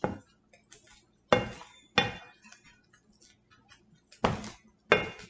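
Spatula scraping and knocking against a frying pan while stirring scrambled eggs and sausage, keeping them moving so they don't burn: about five sharp, irregularly spaced scrapes and clacks.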